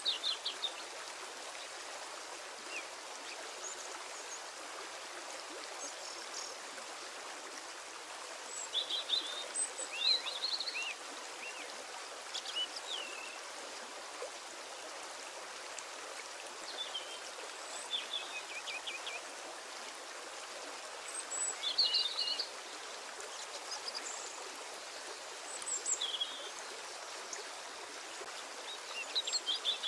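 Steady rushing of running water with short bird chirps every few seconds.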